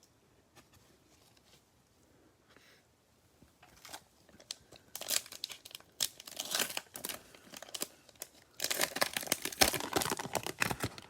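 Trading-card pack wrapper being torn open and crinkled, in two spells of crackly rustling after a few quiet seconds.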